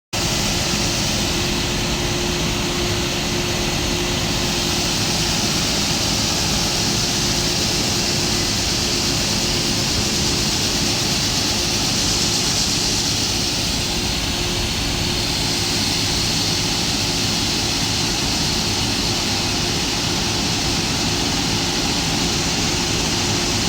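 Farm machinery running steadily: an even engine drone with a constant hum, over a wash of machine and air noise.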